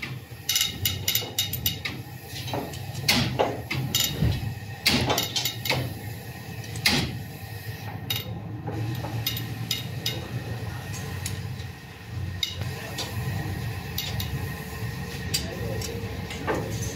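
Scattered metallic clicks and clinks of hand tools working on a diesel engine, as a long-handled wrench is pulled round on the cylinder-head bolts, over a steady low hum.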